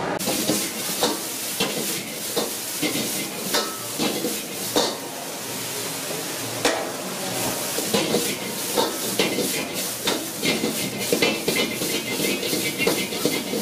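Bean sprouts and shredded cabbage sizzling in a wok over a high gas flame, with a ladle clanking and scraping against the wok as they are tossed; the clanks come quicker in the second half.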